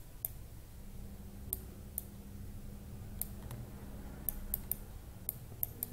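About ten sharp, irregularly spaced clicks from the pen or mouse used to handwrite on a slide on screen, over faint room tone with a steady low hum in the middle.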